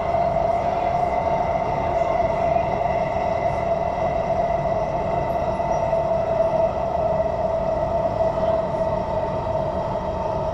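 SMRT MRT train running steadily along the track, heard from inside the carriage: a constant tone over an even rolling rumble, with no change in speed.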